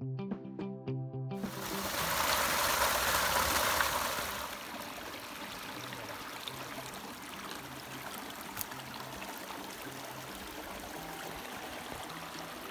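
Background music with a low, stepping line of notes. About a second in, a steady rushing outdoor noise joins it and is loudest for the next few seconds.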